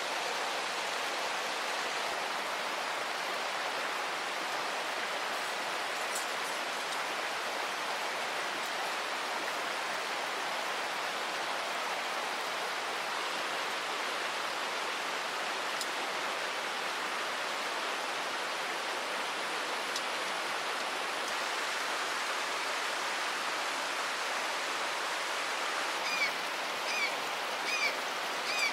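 Steady rush of river water, an even hiss with no breaks. Near the end a series of short, high chirps comes in over it.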